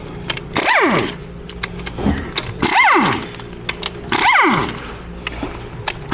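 Pneumatic air tool driving 13mm bolts on an 8L90 transmission's front stator support, in three short bursts: each time the air motor whines up and glides back down as the trigger is let off, with a hiss of exhaust air and light clicks of the socket between.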